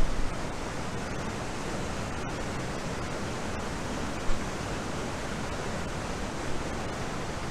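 Steady roar of a waterfall in heavy flood after a hurricane, its water pounding down in full force. A faint short knock about four seconds in.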